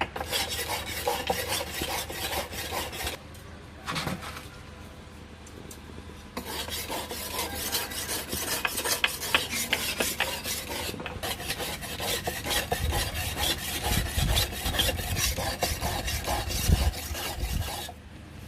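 Hand file rasping against a steel knife blade in quick, repeated strokes. It pauses for a few seconds after about 3 s, starts again, and stops just before the end, with some dull low knocks during the later stretch.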